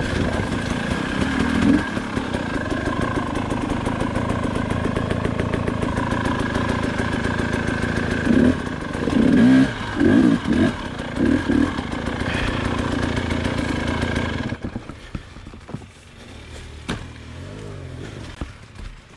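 KTM 300 two-stroke dirt bike engine running at low revs, with several short throttle blips about eight to eleven seconds in. Near the end the engine sound drops away suddenly, leaving quieter clatter.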